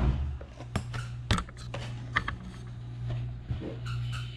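A DVD box set being handled: a string of irregular clicks and knocks from the plastic disc tray and cardboard case, over a steady low hum.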